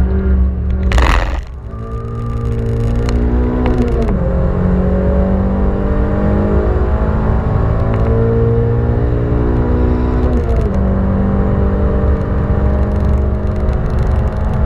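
1989 Honda Civic ED7's 1.6-litre four-cylinder engine heard from inside the cabin, pulling hard on track: the engine note climbs steadily and drops sharply at two upshifts, about four seconds in and again about ten seconds in. A brief burst of noise about a second in, after which the engine note drops away for a moment.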